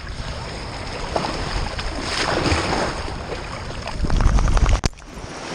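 Wind buffeting the microphone of a GoPro worn on a dog's back, over the wash of surf. The rumble is loudest about four seconds in and then cuts off suddenly.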